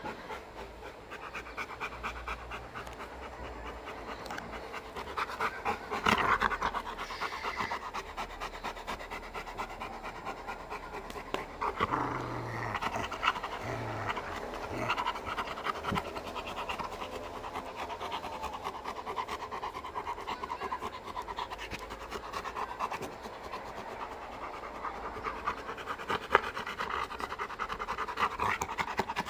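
Rottweiler panting rapidly close up, with a few louder breaths about six and twelve seconds in.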